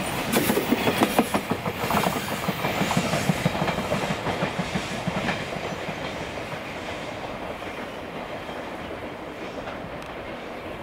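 Wheels of a freight train's container flatcars clicking over the rails as the last wagons pass close by. The sound then fades to a dwindling rumble as the end of the train draws away.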